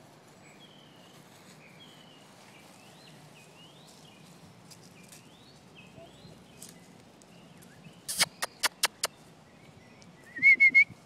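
Faint bird chirps, then five sharp claps in quick succession about eight seconds in, and near the end a burst of four short, loud, wavering whistles.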